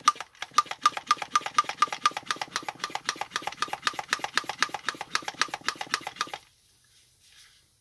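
Air pump inflating a stroller's inner tube, worked in rapid, even strokes, several a second, stopping about six seconds in.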